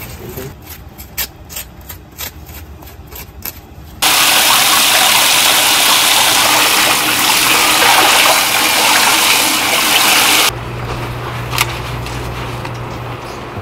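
A few light clicks and knocks, then water gushing hard from a tap for about six seconds, starting and stopping abruptly. A steady low hum and a couple of clicks follow.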